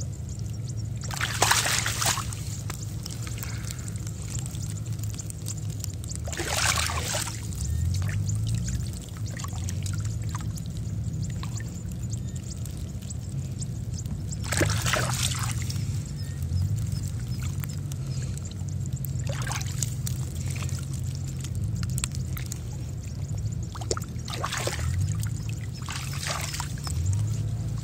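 Shallow muddy paddy water splashing and pouring in about six short bursts as it is scooped up with a woven bamboo basket, over a steady low hum.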